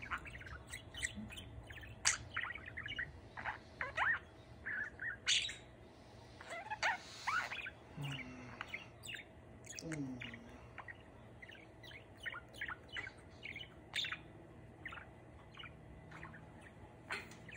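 Budgerigar chattering: a long, busy stream of quick chirps, clicks and warbles, with a few longer rising whistles mixed in.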